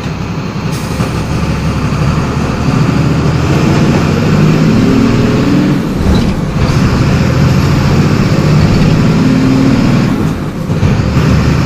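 MWM 6.12 TCAE six-cylinder turbo diesel of a Volksbus 17.210 EOD bus pulling under load, its note climbing and then briefly falling away about six seconds in and again about ten and a half seconds in, as at gear changes on the five-speed manual gearbox.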